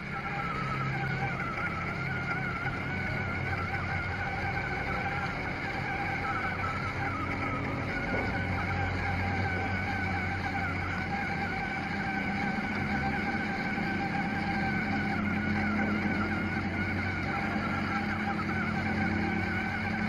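Small DC gear motors of a homemade RC buggy running as it drives, making a steady whine whose pitch wavers slightly. The whine starts abruptly at the very beginning.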